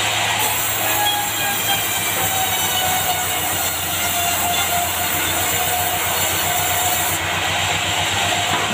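Large sawmill band saw running and cutting through a dry bengkirai (yellow balau) log, a loud steady drone with a high whine and the hiss of the blade in the wood.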